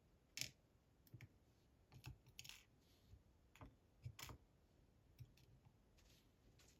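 Faint, irregular small clicks and light taps of tiny metal lock pins and parts being handled while a Bramah-style pump lock is taken apart, about ten in all.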